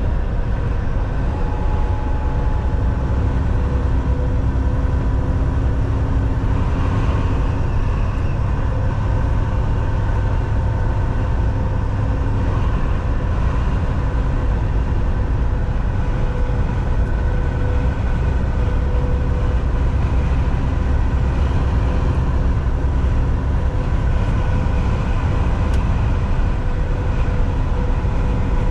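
Volvo semi-truck on the move: a steady low engine drone and road rumble, with a few faint steady tones riding above it.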